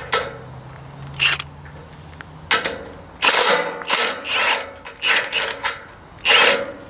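Cordless electric impact wrench hammering off a bolt in several short bursts.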